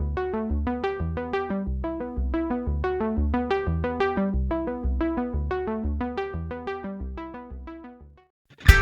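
Background music: short, evenly repeating notes over a bass, fading out about eight seconds in, then a louder passage starting just at the end.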